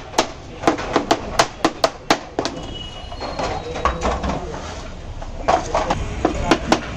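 Quick, irregular knocks of a knife chopping on a cutting board, about two or three strikes a second, thinning out for a few seconds midway before picking up again.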